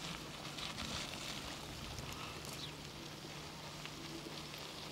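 Steady background hiss with a low, steady hum underneath and a few faint, short high ticks.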